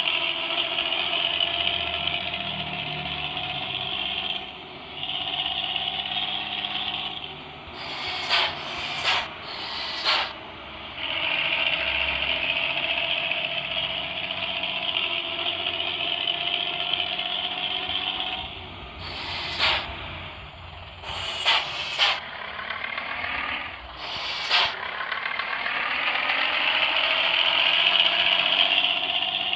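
Sahabat bus's engine and loud, growling 'ngorok' exhaust pulling hard, its pitch climbing through each acceleration and dropping between them as it shifts gears. Several short, sharp hisses come in the gaps between pulls.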